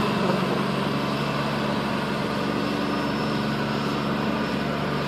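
Diesel engine of a Hyster container top loader running steadily as the heavy machine drives across the yard, its low note holding an even pitch.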